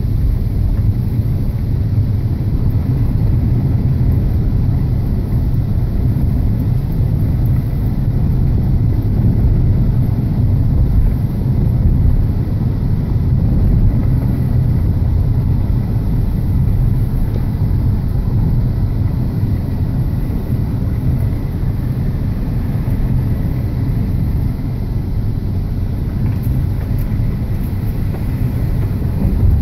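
Steady low rumble of a vehicle driving on a gravel road, heard from inside the cabin: engine and tyre-on-gravel road noise.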